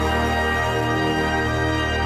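Theme music with held chords over a steady deep bass.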